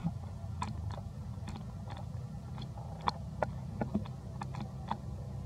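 A macaque biting and tearing at a coconut's fibrous husk: irregular short crunching snaps, about a dozen, over a steady low rumble.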